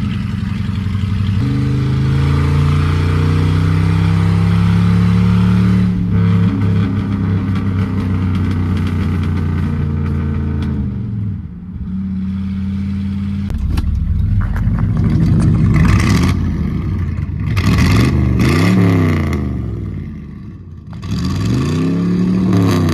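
Vehicle engine and exhaust under hard acceleration, the pitch climbing steadily for about ten seconds. It drops away, then revs up and down three times, with sharp pops and crackles from the exhaust as it comes off the throttle.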